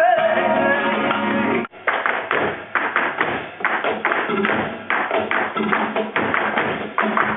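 Live flamenco: a singer's wavering voice over guitar, broken off by a sudden cut about two seconds in. After it comes a fast, driving run of sharp percussive strikes, flamenco dancer's footwork (zapateado) stamping out the rhythm with guitar.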